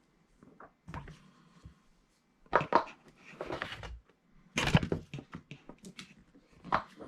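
Comic books being handled: irregular rustling and a few knocks as issues are slid out and put back in a box, the loudest about two and a half and four and a half seconds in.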